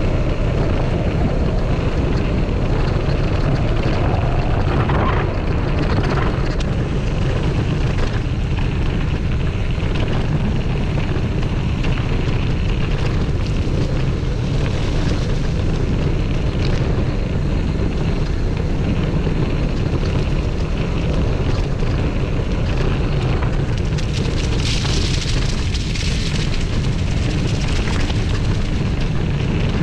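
Wind buffeting an action camera's microphone on a moving mountain bike, a steady low rumble, mixed with tyre noise over a gravel and leaf-covered dirt track.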